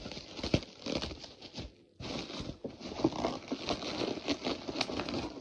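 Parcel packaging being handled and pulled open by hand: an irregular rustling and crackling, broken by a short sudden gap about two seconds in.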